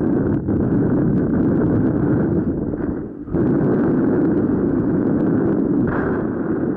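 Wind buffeting the microphone of a camera on a paraglider in flight, a dense low rumbling rush from the airflow, with a brief lull about three seconds in.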